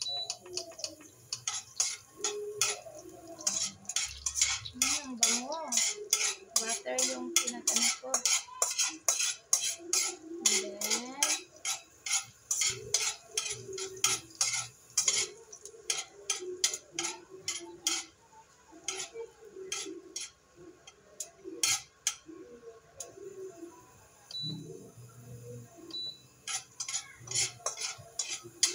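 Metal spoon scraping and clinking against a stainless steel pan in quick, irregular strokes as garlic is stirred in melted butter, over a light sizzle of the garlic frying.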